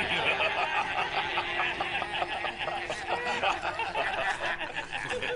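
A group of men laughing mockingly, many voices overlapping, with one man's loud laughter among them.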